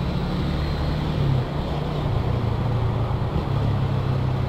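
Small motorcycle engine running steadily under way, with wind and road noise over it; the engine note dips briefly about a second and a half in and then settles slightly lower.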